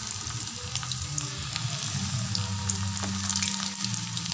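Chicken pieces coated in little millet flour shallow-frying in oil with curry leaves: a steady sizzle full of small crackling pops.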